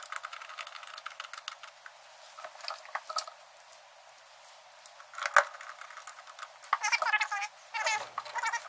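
Hand work on a furnace draft inducer motor and its housing: scattered clicks and scrapes as the motor is seated, with one sharp knock about five seconds in. Near the end, squeaky rubbing as the rubber exhaust-pipe coupling is handled.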